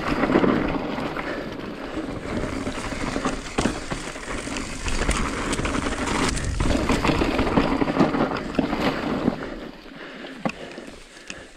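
Mountain bike rolling fast down a loose dirt trail: steady tyre noise on the dirt with many sharp clicks and rattles from the bike jolting over the ground, and wind rushing on the microphone. It gets quieter about ten seconds in as the bike slows.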